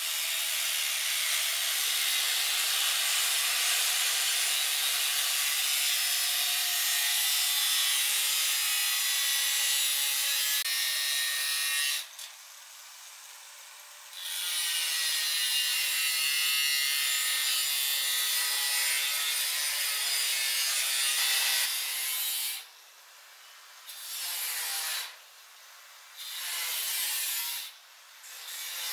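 Handheld power tool grinding or abrading a surface in long runs. It stops for about two seconds near the middle and three more times, briefly, near the end.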